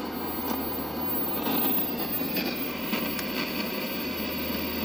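Steady rushing noise with a low hum underneath and a few faint clicks.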